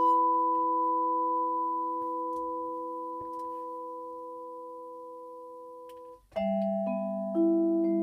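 Musser vibraphone played with mallets: a chord rings on and slowly fades for about six seconds, is cut off abruptly, and a new chord is struck, with further notes added over the next second.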